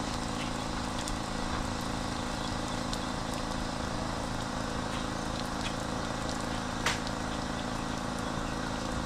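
Outboard engine idling steadily, settling to idle, with one sharp click about seven seconds in.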